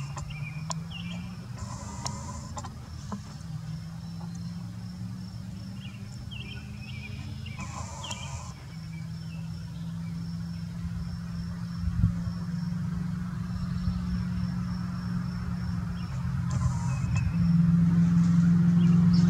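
A motor vehicle's engine running with a steady low hum that grows louder near the end. Birds chirp now and then, and there is one brief knock about two-thirds of the way through.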